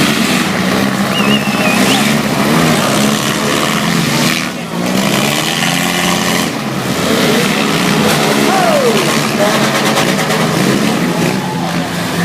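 Several four-cylinder demolition derby cars running at once, their engines revving up and down.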